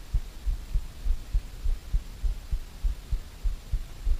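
Low, dull thumps repeating about three times a second.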